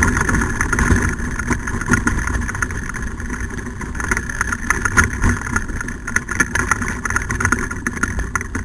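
Wheeled dog kart pulled by a sled-dog team, rattling and rumbling steadily as it rolls over a rough dirt trail, with many small clatters from the frame.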